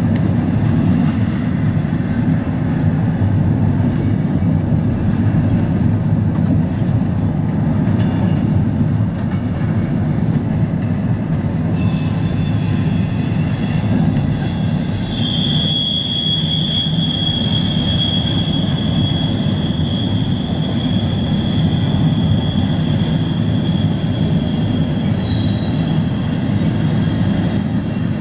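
Steady rumble of a double-stack intermodal freight train rolling along, heard from a car driving beside it. From about halfway through, a steady high-pitched squeal of the train's wheels joins the rumble, the wheel flanges rubbing the rail on a curve.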